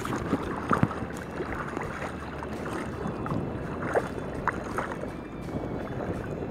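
Shallow seawater sloshing around wading legs, with a few small splashes, and wind buffeting the microphone.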